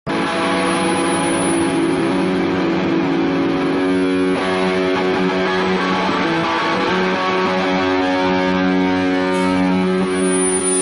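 Live rock band playing, with electric guitar to the fore holding long sustained chords.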